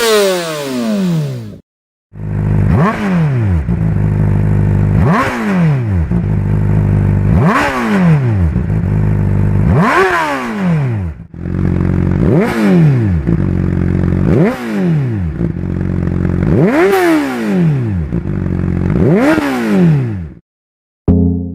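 A 600-class inline-four supersport motorcycle engine idles and is blipped repeatedly while stationary. Each rev shoots up quickly and falls back, roughly once every two seconds. The audio is edited from several separate recordings.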